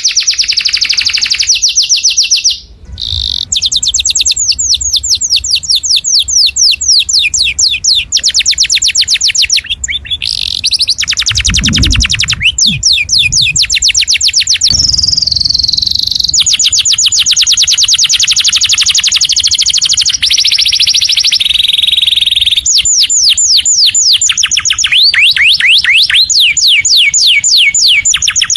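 Canary singing a loud, continuous song of rapid trills: runs of fast repeated notes, each sweeping downward, switching to a new trill every few seconds, with a brief break about three seconds in.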